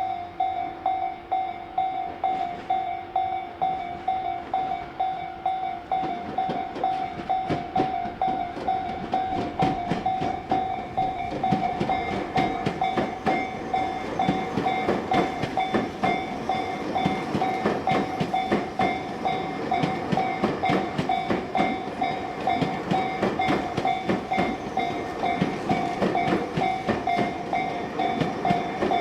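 Japanese level-crossing warning bell ringing its steady, repeated ding. About six seconds in, a train starts passing through the crossing, its wheels clattering over the rail joints beneath the ringing bell.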